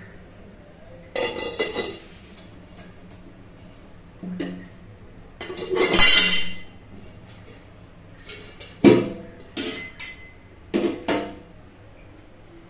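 Stainless steel pot lids being lifted and set down on cookware, clinking and clattering in several separate bursts; the loudest, longest clatter comes about six seconds in.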